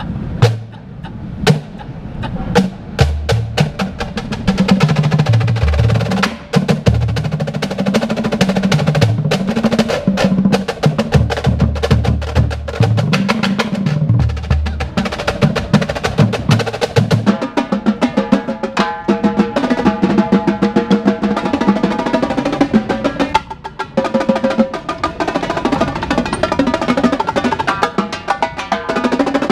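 Drum corps battery of snare drums, tenor drums and tuned bass drums playing a fast passage together. Low pitched bass drum notes step up and down through the first half. In the second half the higher drums and dense snare strokes take over.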